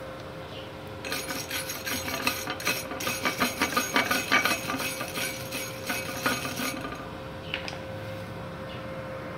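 MIG welding arc running a bead with CO2 shielding gas: a dense, irregular crackle that starts about a second in and stops about seven seconds in, over a faint steady hum.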